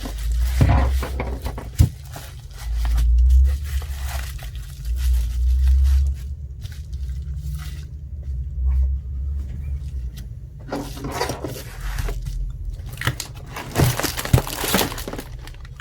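Hands working on the tablet at the bench: low bumps and handling thumps, with scattered scraping and crinkling, and a sharp click about two seconds in.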